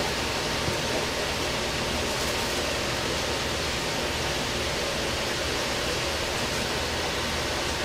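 Steady, even rushing noise with a faint constant hum, like a kitchen extractor fan running.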